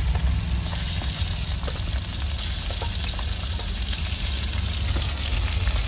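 Chicken liver pieces sizzling and spitting as they hit hot oil in a steel kadhai, the sizzle swelling about a second in as more pieces go in. Small clicks are scattered through it over a steady low hum.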